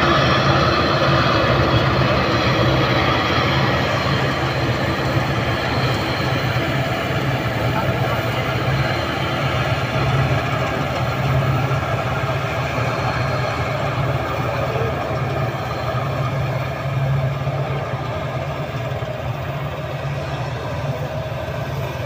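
Changfa tracked rice combine harvester running steadily while harvesting, a constant engine and machinery drone. It grows gradually fainter as the machine moves away.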